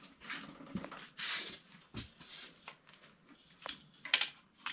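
The factory distributor being worked loose and lifted out of a 5.9 Magnum V8 by hand: scattered scrapes, rustles and clicks of metal parts, with a low knock about two seconds in and a sharper clack about four seconds in.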